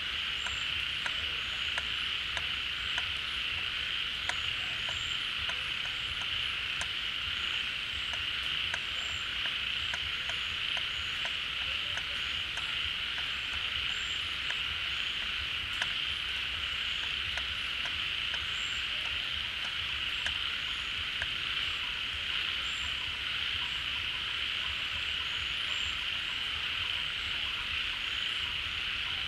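A large chorus of frogs calling together at a pond, a steady dense mass of overlapping calls with short clicks and faint high chirps scattered through it. It is the full chorus frogs raise when rainwater fills the pond at the start of the rainy season.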